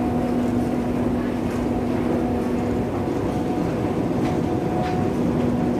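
Metro station escalator running, a steady mechanical hum over a low rumble, with a few faint clicks.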